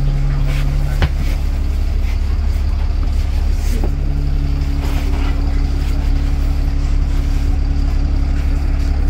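Optare MetroCity single-deck bus's diesel engine running with a steady low drone. A higher hum over it drops away about a second in and comes back near four seconds, and there is a single sharp click about a second in.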